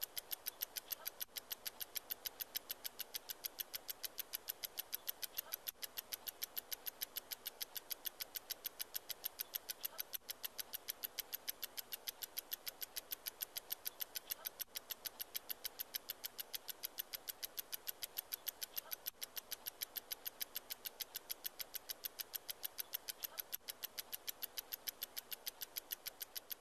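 Red twin-bell alarm clock ticking with a quick, even beat.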